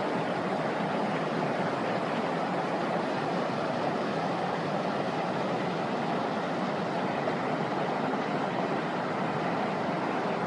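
Rain-swollen mountain stream, muddy floodwater rushing and churning over boulders: a steady, even rush of water.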